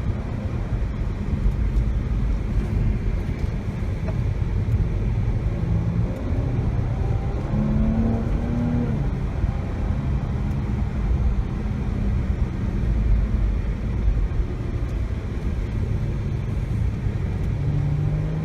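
Jaguar XE S's supercharged 3.0-litre V6 engine driving under load, its note rising and falling with the throttle over a steady low rumble of road noise. The engine note climbs most clearly about eight seconds in and again near the end.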